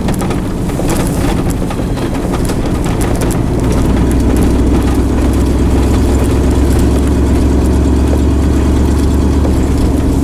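Vehicle engine running with a steady low drone that gets louder from about four seconds in, with scattered clicks and rattles in the first few seconds.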